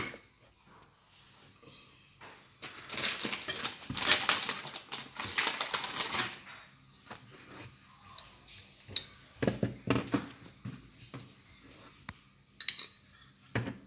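Kitchen handling sounds as food is prepared on a wooden cutting board: a few seconds of rustling and scraping, then scattered light clicks and knocks of dishes and utensils.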